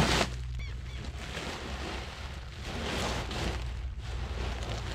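Empty woven polypropylene big bag flopping down onto a wooden trailer bed, then crackling and rustling as it is folded by hand, over a tractor engine idling steadily.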